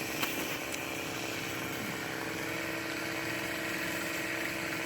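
An engine running steadily at an even pitch, with a faint click or two in the first second.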